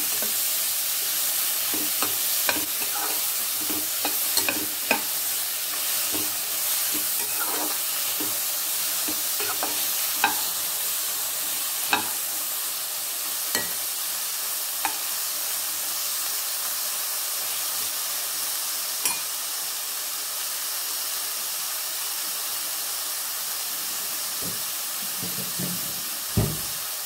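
Dried red chillies, onion and tomato sizzling as they fry in oil in a metal kadai, with a metal spoon clicking and scraping against the pan as they are stirred, the clicks thinning out in the second half. A dull thump near the end.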